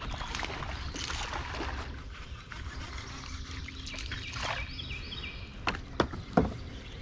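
River water splashing and dribbling in uneven surges, with a few sharp knocks near the end.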